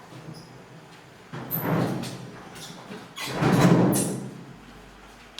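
Two hollow knocks, about a second and a half apart, each ringing on and fading in an echoing room, as packaging is pulled off a new washing machine.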